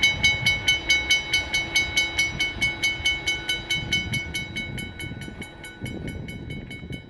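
Railroad crossing bell ringing rapidly, about five strikes a second, over a low rumble. The ringing fades away near the end.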